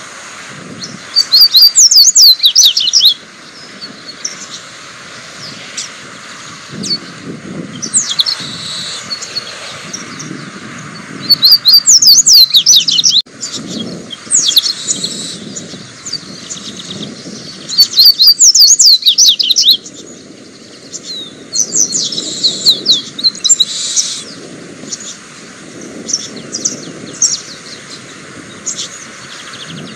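Male double-collared seedeater (papa-capim) singing: three loud, fast twittering phrases of quick sweeping notes, about six seconds apart, with softer chirps and shorter phrases in between.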